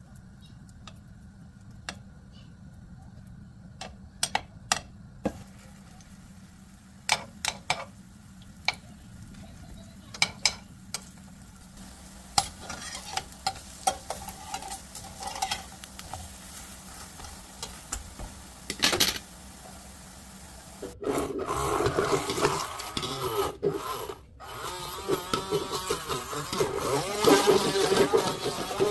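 A metal spoon clicks and scrapes on a nonstick egg pan as potato batter is spread into the oiled cups, over faint sizzling oil. After about twenty seconds a cordless hand blender starts running in a tall jar, grinding green grapes, and this is the loudest part.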